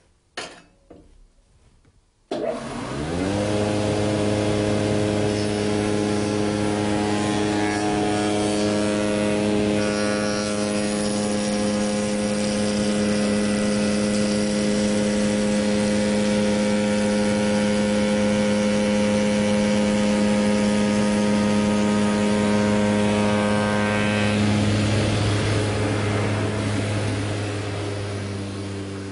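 Spindle moulder started up about two seconds in, its motor and cutter block spinning up quickly to a steady running hum. The cutter then works a curved pine segment fed against the ring fence. Near the end the sound starts to fade as the spindle winds down.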